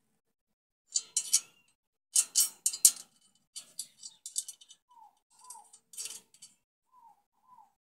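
Small steel nut and washers clicking and clinking against a bolt and a steel bracket plate as they are set in place and threaded on by hand, in several short clusters of clicks.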